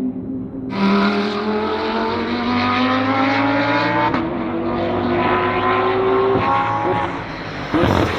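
BMW M4 GT3 race car's twin-turbo straight-six accelerating hard, its pitch climbing steadily for about five seconds, with a brief break about four seconds in. The pitch drops after about six seconds, and a sharp loud burst comes near the end.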